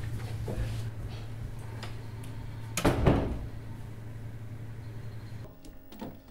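A door banging shut once, about three seconds in, over a steady low room hum that stops about five and a half seconds in.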